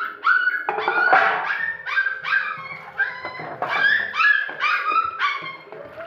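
Bull terrier puppies yelping in a quick, continuous series of short, high-pitched yelps, about two or three a second.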